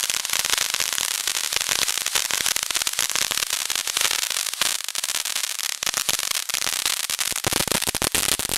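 Fireworks going off close by: a steady hiss of spraying sparks packed with fast, dense crackling.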